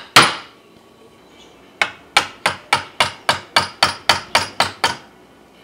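A chisel being struck to cut a slot into a wooden block. There is one blow, then after a pause of about a second and a half a quick run of about a dozen sharp taps, roughly four a second.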